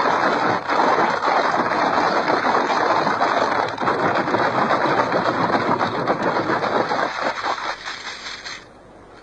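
Shark callers' rattle of half coconut shells being shaken, a dense continuous clatter of many small clicks that stops abruptly about eight and a half seconds in.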